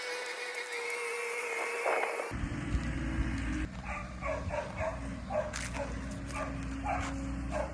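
A dog barking repeatedly, about two barks a second, from a few seconds in. Under it, from about two seconds in, a steady low diesel engine hum from the skid steer.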